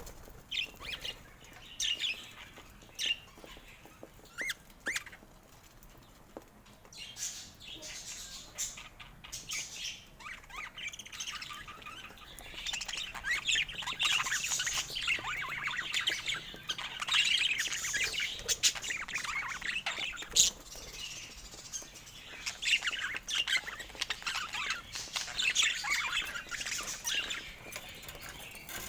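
Budgerigars chirping and chattering: scattered single chirps at first, then from about twelve seconds in a dense, busy run of quick overlapping chirps that eases briefly around two-thirds of the way through and picks up again.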